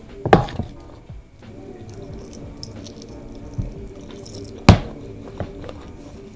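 Metal spoon knocking against a serving tray while scooping food, two sharp clinks, one just after the start and a louder one about two-thirds of the way through, over soft background music.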